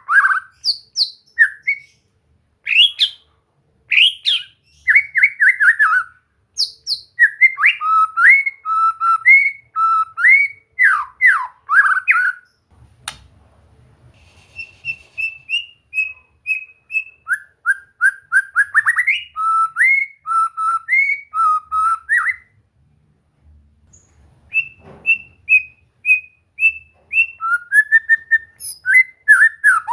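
White-rumped shama (murai batu) singing: fast strings of clear whistled notes, many gliding up or down, broken by two short pauses.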